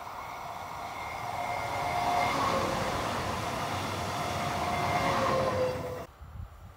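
Electric multiple unit passing close at speed: a rush of wheels on rail with a whine from the traction equipment that grows louder, then drops in pitch as the train goes by. The sound cuts off suddenly about six seconds in.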